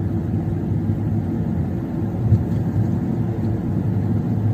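Kia Cerato 1.6 driving, heard from inside the cabin: a steady low rumble of engine and road noise.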